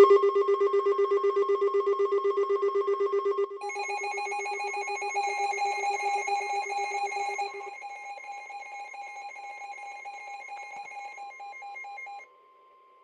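Electronic emergency-alert attention tone: a rapidly pulsing, ringing alarm of about eight pulses a second, sounding the start of a new weather warning. It shifts to a different pitch about three and a half seconds in, thins to a quieter higher tone near the middle, and cuts off about twelve seconds in.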